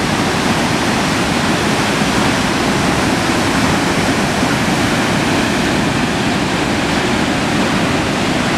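Floodwater pouring over an overflowing dam spillway and churning into whitewater below: a loud, steady rush of water.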